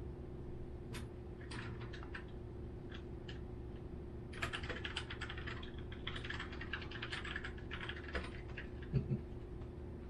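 Light, irregular clicking and rustling from a long-haired Chihuahua puppy moving about and nosing a plush toy on the playpen's floor pad, thickest in the middle, with a dull thump near the end, over a steady low hum.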